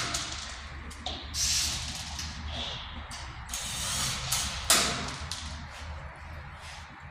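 Short scraping, rasping bursts from work on a galvanised steel drywall stud frame, several times, the loudest about a second and a half in and near the five-second mark, over a faint steady low hum.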